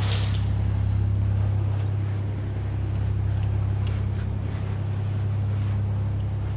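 A passing boat's engine running with a steady low hum.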